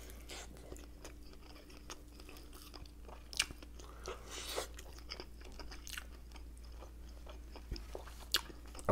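A person biting and chewing bites of fast food, with scattered small wet clicks and smacks of the mouth.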